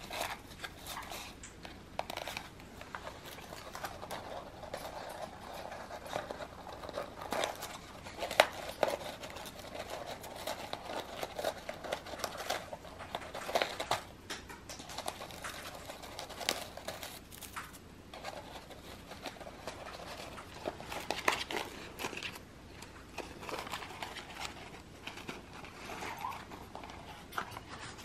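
African grey parrot working at a paper-wrapped foraging box with its beak to get it open: irregular paper crinkling and small clicks, with a few sharper snaps now and then.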